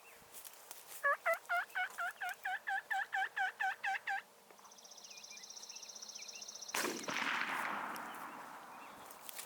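A turkey call run as a quick series of about a dozen hen yelps, roughly four a second. About seven seconds in, a single shotgun shot cracks out and echoes away over a couple of seconds: the follow-up shot at a wounded tom.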